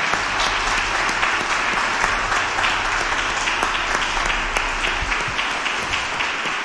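Congregation applauding: a steady wash of many hands clapping.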